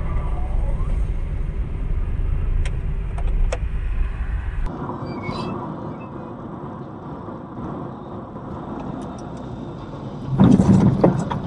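Car engine and tyre rumble picked up by a dashcam inside a moving car, steady and low, dropping to a quieter running noise after a cut about five seconds in. Near the end, a loud sudden noise lasting about a second.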